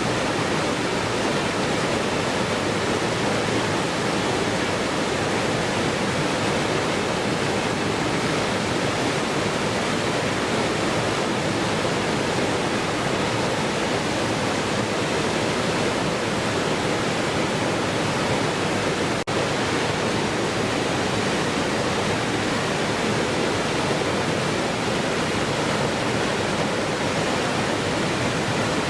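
Waterfall rushing steadily in an even, unbroken wash of water noise, with one brief click and dropout about two-thirds of the way through.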